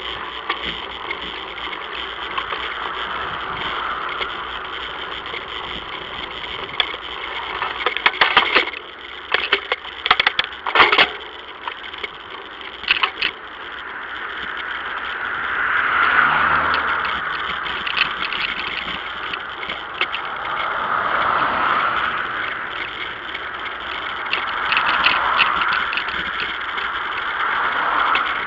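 Wind and road noise on a Rollei Racy HD+ action camera's microphone during a bicycle ride. A run of sharp rattling clicks comes about a third of the way in. In the second half, three whooshes each swell and fade, like passing traffic.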